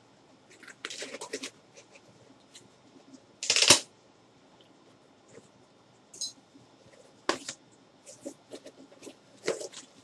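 Cardboard shipping box and its sealing tape being cut and pulled open by hand: a series of short scrapes, rustles and crinkles, the loudest a short burst about three and a half seconds in.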